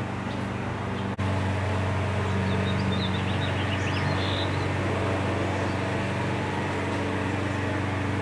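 Steady motor hum that breaks off for an instant about a second in, then comes back a little stronger, with faint bird chirps over it.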